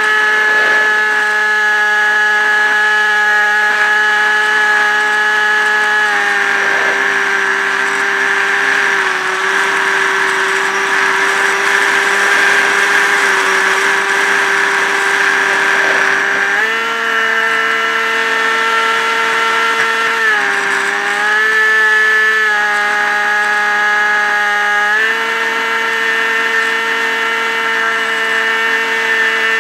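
Multiplex EasyStar RC plane's electric motor and pusher propeller whining steadily, heard from a camera mounted on the plane, with rushing air. The pitch drops about six seconds in, rises again near seventeen seconds, dips briefly around twenty seconds and rises once more near twenty-five seconds.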